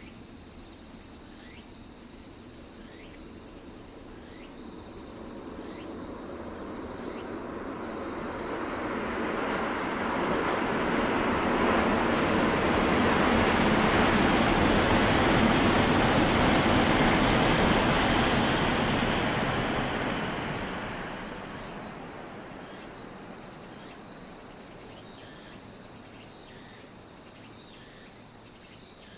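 Coupled E5 and E6 series Shinkansen train passing at speed on a viaduct: a rushing whoosh that swells over several seconds, holds for a while, and fades away. Insects chirp steadily in the background throughout.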